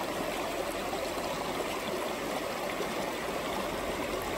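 Shallow rocky mountain creek running over stones: a steady, even rush of water.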